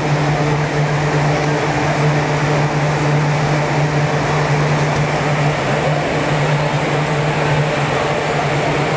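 Steady hum and rush of the ventilation blowers that keep an air-supported sports dome inflated, with a constant low tone under the air noise.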